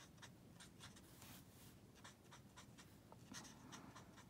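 Faint scratching of a Stampin' Blends alcohol marker's felt tip on cardstock in a series of short, quick colouring strokes, one a little longer about a second in, as the dark shade is laid onto stamped flowers.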